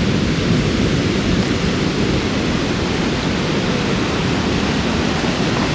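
Steady rush of sea surf breaking on a beach, with wind buffeting the microphone as a low rumble.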